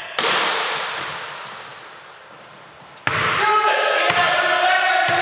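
Basketball bouncing on a hardwood court floor under a background song. The song breaks off near the start into a fading wash, then comes back with a sharp hit about three seconds in.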